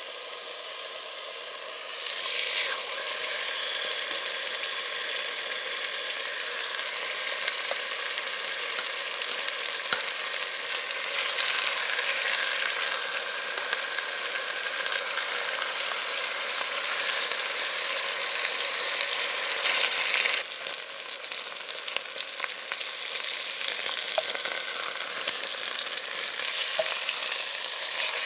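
Skin-on chicken thighs sizzling as they sear in hot oil, a steady crackling hiss. The sizzle grows louder about two seconds in.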